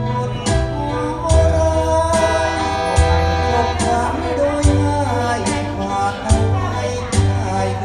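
A song playing: a singing voice over backing instruments, with a strong bass and a steady beat.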